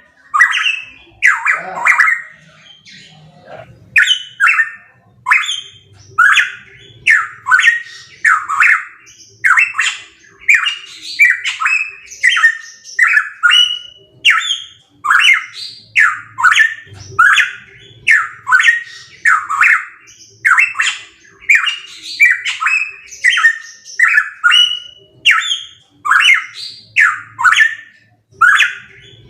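Pitohui calling loudly and without pause: a fast, steady string of short, harsh, sweeping notes, about two a second.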